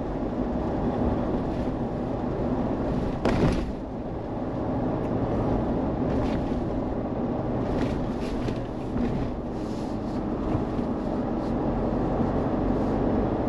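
Steady road and engine noise from a moving Mahindra Thar diesel, with a low drone under the rumble of the tyres. There is one short, louder burst of noise about three seconds in.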